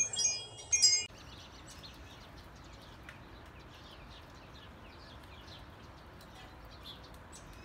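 Wind chimes ringing, several clear metallic tones sounding together, cut off about a second in. Then only faint, short, high chirps over quiet hiss.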